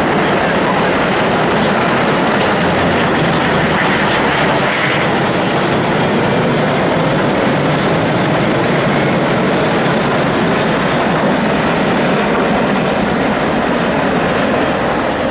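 Military aircraft flying over in formation: the steady, loud engine noise of a tanker jet, F-16 fighters and a C-130 Hercules turboprop, with no break in the sound.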